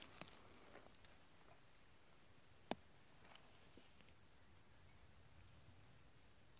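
Near silence with a faint, steady, high-pitched insect trill. A few soft rustles come near the start, and there is one sharp click about two and a half seconds in.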